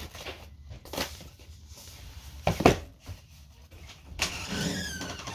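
Papers and a scrapbook being handled and set down on a floor: a few knocks, the loudest about two and a half seconds in, and some rustling near the end, over a low steady rumble.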